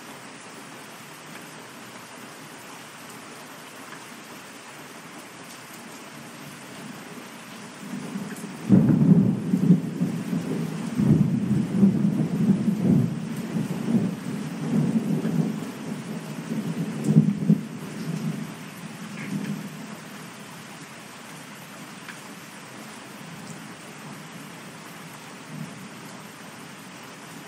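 Steady rain falling, with a long roll of thunder that breaks in about eight seconds in, rumbles and crackles for about ten seconds with its loudest claps at the start and again near the end, then dies away, leaving the rain.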